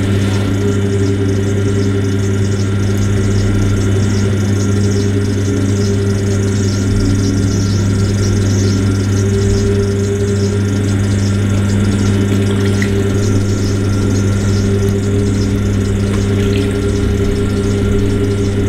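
Electric potter's wheel motor running at a steady speed, a loud, unchanging hum as a large bowl of wet clay is thrown on it.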